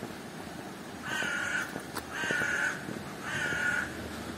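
A crow cawing three times, each harsh caw lasting about half a second, spaced about a second apart.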